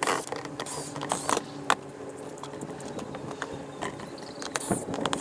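Cordless drill unscrewing the bolts of a boat's transom bracket, running in short spells, with many sharp clicks from the bit and hardware.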